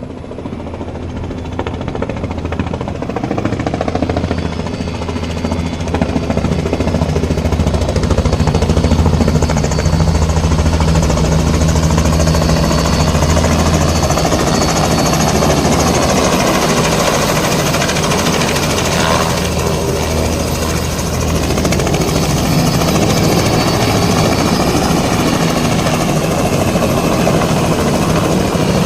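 Helicopter coming in to land: rapid, steady chop of the rotor blades with engine whine, growing louder over the first several seconds and then holding steady.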